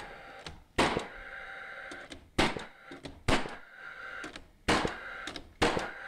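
Paslode cordless framing nailer firing five times, driving nails through a 2x4 bottom plate, each shot a sharp bang followed by the tool's fan whirring between shots.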